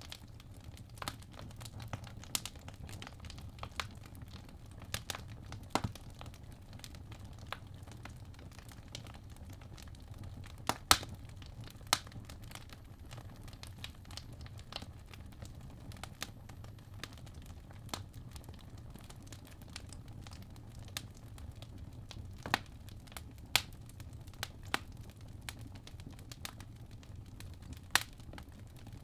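Wood fire crackling in a fireplace: irregular sharp pops and snaps over a low steady rumble of the burning, with a few louder pops about 11 and 12 seconds in and again near the end.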